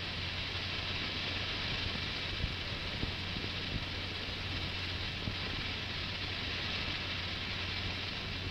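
Steady rushing roar of the X-15 rocket plane sliding out its landing on its skids, with a steady low hum and a few faint clicks underneath.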